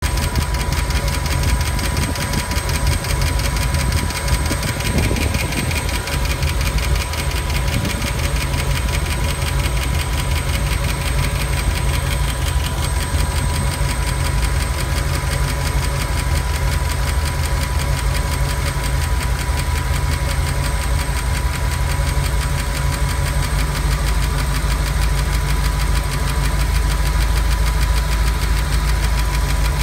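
Ford 5.0 (302) V8 running steadily with a fast, even ticking knock, which the owner places under the driver-side valve cover. The noise appeared after the engine overheated.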